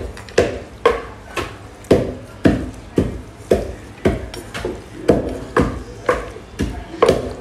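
Wooden spoon mixing a thick sauce in a pot, knocking against the pot in a steady rhythm about twice a second.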